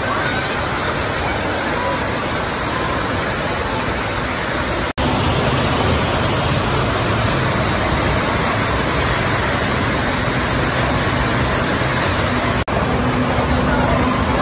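Steady rushing of water at a water slide, with voices in the background. The sound drops out abruptly twice, about five seconds in and again near the end.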